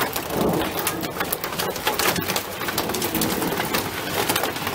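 Hail falling on a wooden deck and metal railing: a dense, steady patter of small hailstone impacts, many sharp ticks over a rushing hiss.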